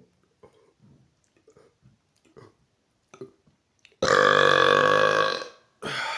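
A man's loud, bassy burp, starting suddenly about four seconds in and lasting about a second and a half, after a few faint short sounds.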